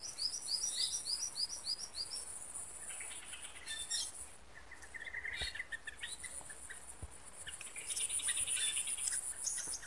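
Small birds chirping: a quick run of short rising notes for the first two seconds or so, then scattered calls and a trill near the end, over a steady high-pitched insect drone.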